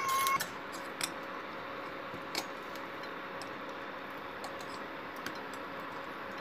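A steady background hum with a few faint clicks as pumpkin flowers are turned by hand in thick gram-flour batter in a steel bowl. A short steady beep sounds right at the start.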